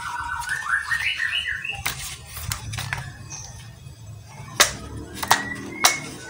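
Three sharp clicks from a plastic toy gun being handled, a little over half a second apart in the second half. Before them, near the start, comes a short run of stepped, rising electronic beeps.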